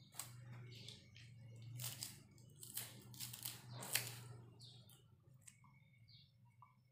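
Kitchen knife slicing through crisp green vegetables onto a small wooden cutting board: a run of crunchy cuts through the first four seconds or so, then a few sparser ones. A steady low hum sits underneath.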